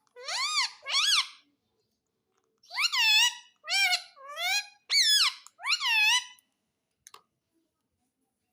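Pet parrot calling in short high-pitched squawks that rise and fall: two calls, then after a pause a run of about five more.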